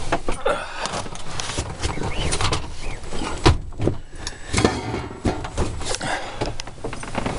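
Rustling, scraping and irregular knocks as someone climbs through a cargo van packed with junk, brushing and bumping the stored tools, cords and bags; the loudest knock comes about three and a half seconds in.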